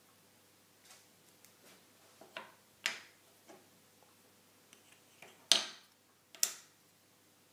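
Small walnut and boxwood boxes and pieces being set down and moved on a wooden tabletop: a handful of separate wooden clicks and taps, the loudest about five and a half seconds in.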